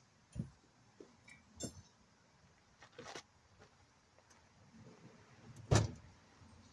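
Scattered knocks and clinks of hand tools and metal parts being handled during brake and hub reassembly, with one louder knock about three-quarters of the way through.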